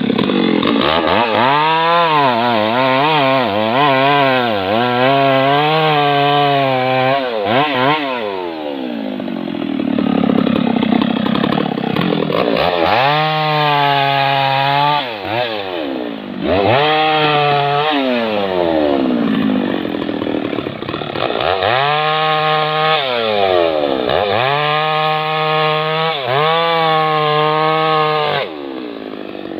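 Stihl MS 660 two-stroke chainsaw cutting through a thick trembesi (rain tree) log: the engine revs up and holds at high speed while the chain bites, then falls back between cuts, several times over.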